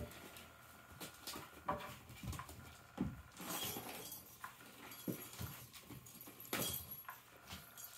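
Kittens pouncing and scrambling over carpet and the fabric cover of a cat play toy: scattered soft thumps, scuffs and rustles at an uneven pace.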